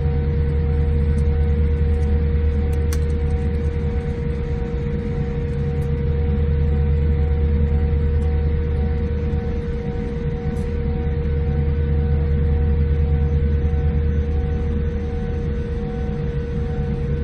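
Jet airliner cabin noise while taxiing to the stand: engines at idle, giving a steady low rumble with a constant hum. A fainter higher tone pulses evenly on and off over it.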